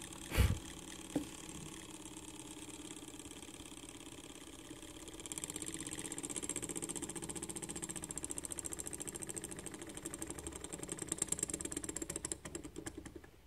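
Small homemade lamina-flow Stirling engine running: a fast, even mechanical clatter from its crank and flywheel, which grows louder about five seconds in and drops away near the end. A single thump sounds near the start.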